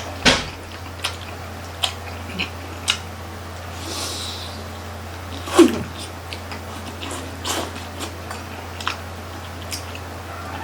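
Mouth noises of eating grilled chicken intestine barbecue: scattered short wet clicks and smacks of chewing, with two louder sharp sounds that drop in pitch, one just after the start and one near the middle, over a low steady hum.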